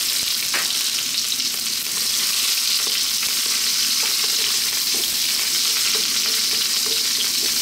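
Chopped onion and fennel seeds sizzling steadily in hot sunflower oil in a wok on high heat. From about halfway a wooden spatula stirs them, adding light scraping.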